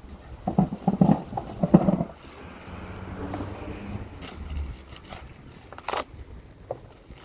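Packaging of flower bulbs rustling and crinkling as the bags are emptied, with bulbs tumbling into a 5-gallon pail. The loudest crackling comes in a quick run early on, then softer rustling with a few sharp clicks later.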